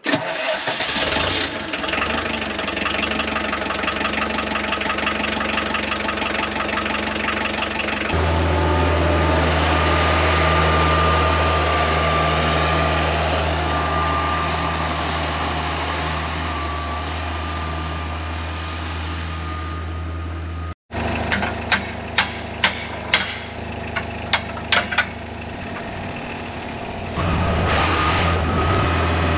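Construction machine's engine running steadily, speeding up and getting louder about a third of the way in. After a break, a quick series of sharp knocks, then the engine speeds up again near the end.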